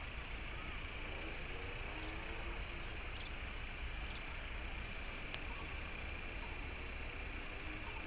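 Steady, high-pitched chorus of insects over a low rumble.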